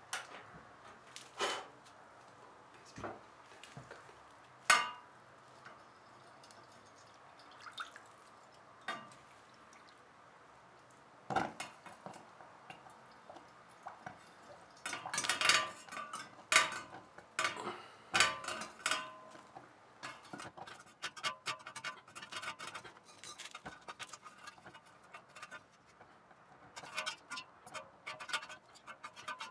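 Metal parts and tools being handled: scattered sharp clinks and knocks, then a busy stretch of clattering from about halfway through.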